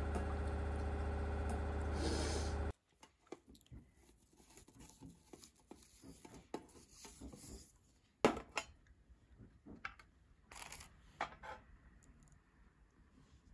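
A steady hum with held tones that cuts off abruptly near three seconds in. Then soft rustling and small clicks of hands untying a ribbon and opening a biscuit box, with a sharp knock about eight seconds in and brief rustles a few seconds later.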